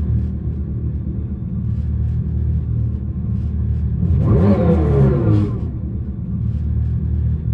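The Dodge Charger Daytona SRT Concept's Fratzonic Chambered Exhaust, the electric car's made-up muscle-car exhaust sound, running with a steady deep rumble. It gives one quick rev about four seconds in that dies away by about five and a half seconds.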